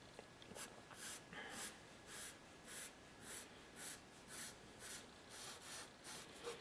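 Charcoal pencil scratching on paper in faint, short, repeated strokes, about two a second.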